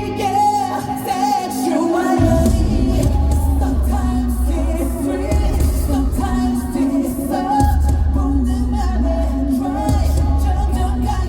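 Male pop singer singing live over a loud backing track with a heavy bass beat, in a large hall. The bass drops out for about the first two seconds, comes back in, and pauses briefly again past the middle.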